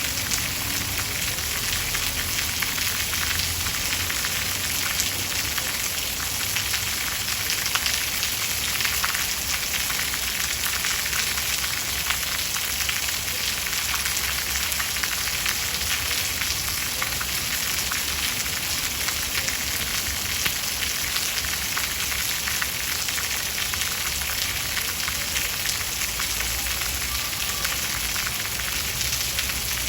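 Steady rain: an even hiss of many fine drops pattering, with no breaks or thunder.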